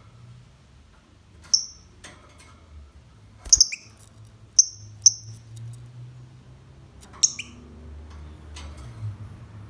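Lovebird giving short, sharp, high-pitched chirps, about half a dozen scattered through, some in quick pairs, over a low steady hum.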